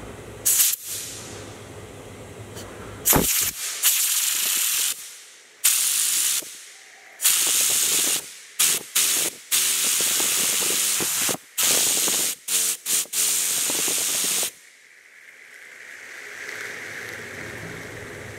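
Compressed-air blow gun blasting a solid titanium fidget spinner to spin it up: repeated loud hisses of air, long ones, then a quick run of short ones, stopping abruptly about three-quarters of the way through. After that comes a faint whir as the spinner coasts down on old, worn bearings that are full of cutting fluid.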